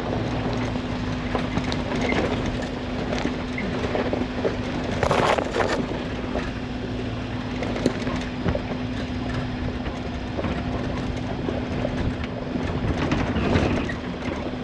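Suzuki Jimny driving down a rough off-road mountain track, heard from inside the cabin: a steady engine hum under tyre and body noise, with scattered knocks and rattles over the bumps and a louder rush of noise about five seconds in.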